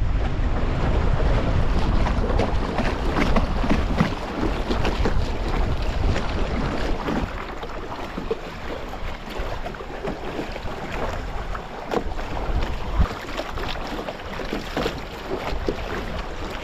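Wind buffeting the microphone and water splashing along the hull of a small sailing dinghy under way on choppy water. The wind is strongest over the first several seconds, then eases to a lighter rush.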